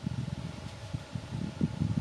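Wind buffeting the microphone: an irregular low rumble that gusts up and down over a faint steady hiss.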